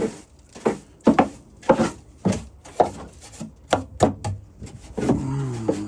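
Pieces of scrap wood knocking and clattering as they are handled: a quick, irregular run of about a dozen sharp wooden knocks.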